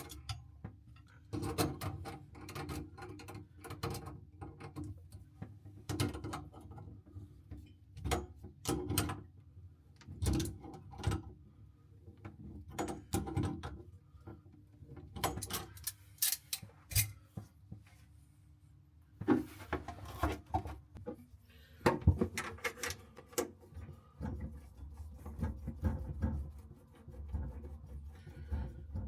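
Hand tools working on pipework: an irregular run of clicks, knocks and scraping.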